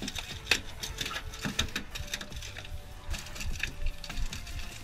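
A freshly landed bluefish flopping on the boat deck, its body and tail slapping the deck in a run of quick, irregular taps and thumps.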